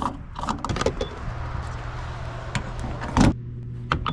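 Clicks and knocks of handling inside a vehicle, over a steady low hum that sets in about a second in. One loud, sharp thump comes about three seconds in, followed by a lighter click.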